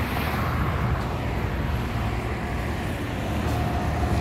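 Road traffic noise: a vehicle going past, swelling and fading in the first second or so, over a steady low rumble.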